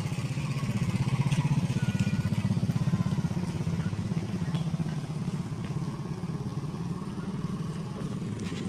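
Eicher truck's diesel engine idling, a steady, rapid low throb, a little louder in the first three seconds.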